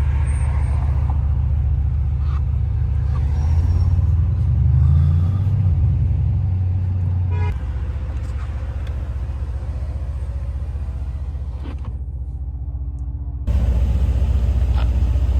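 Stock Mercedes-AMG C63 S engine running with a low, steady rumble at low revs. It drops back about halfway through and picks up again sharply near the end.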